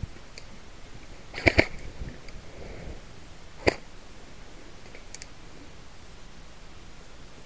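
Airsoft rifle firing close by: two quick sharp shots about a second and a half in, then a single shot about two seconds later.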